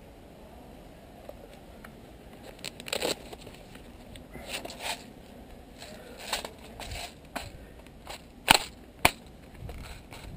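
Scattered sharp cracks and crunches over a low rustle. The two loudest come about half a second apart near the end.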